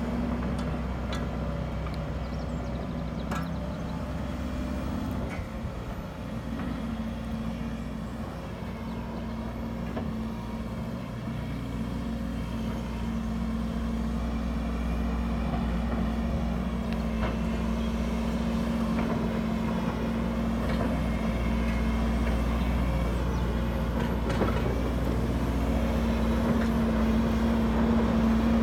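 Hidromek 140 crawler excavator's diesel engine running steadily, with a few faint clicks and clanks from the working machine. The engine gets louder over the second half.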